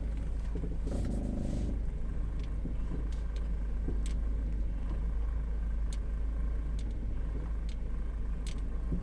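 Car running with a steady low rumble, broken by scattered sharp clicks and a brief rush about a second in. The owner presents these as an abnormal noise that comes with braking and steering.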